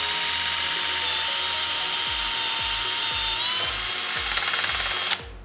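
Cordless drill spinning a turbo scraper that shaves the outer layer off the end of an HDPE pipe: a loud, steady whine that dips slightly in pitch about a second in, rises a little later, and stops abruptly near the end. Background music with a steady beat plays underneath.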